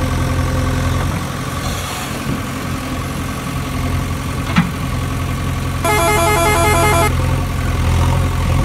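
Electronic engine sound from a toy backhoe excavator: a steady, low, engine-like hum. A click comes about halfway through, and a burst of choppy electronic beeping comes about six seconds in.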